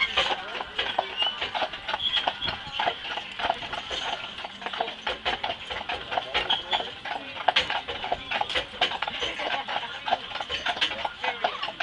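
Hooves of two harnessed carriage horses clip-clopping on a paved road as they pull a carriage, the two horses' steps overlapping in an uneven run of sharp clops.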